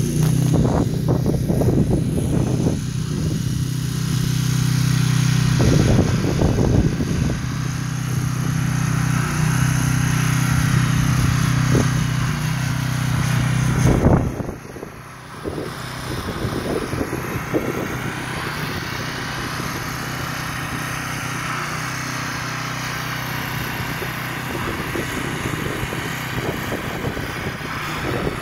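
A steady engine hum under gusts of wind on the microphone; about halfway through, the hum drops out and wind noise is left.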